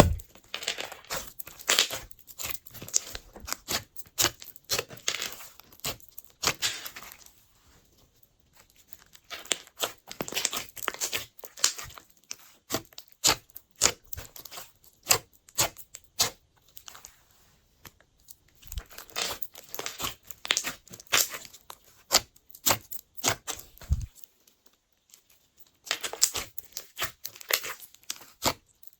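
Hands mixing and squishing glossy slime: a dense run of wet, sticky clicks and pops, broken by three short pauses.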